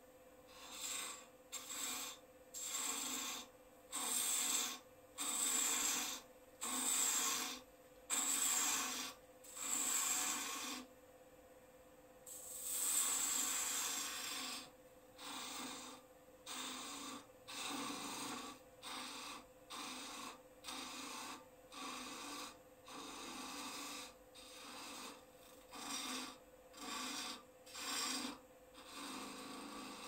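Turning tool cutting a small hazel-wood finial spinning on a Record Power lathe: a rasping hiss with each pass of the tool, repeated in strokes of about half a second to a second, over the lathe's steady hum. The strokes are loudest in the first ten seconds, with one longer cut about twelve seconds in and shorter, lighter strokes after it.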